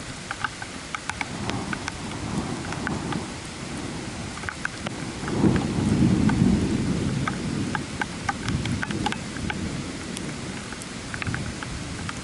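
Steady rain falling, with scattered sharp drips close by. A low rumble of thunder swells about five seconds in, is loudest for a second or two, then rolls away.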